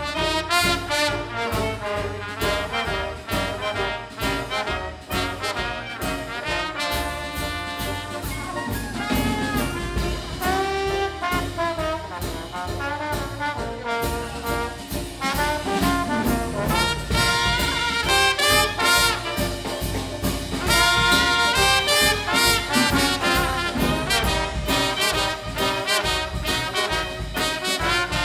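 Live Dixieland jazz band playing, with brass horns carrying the melody over a steady beat.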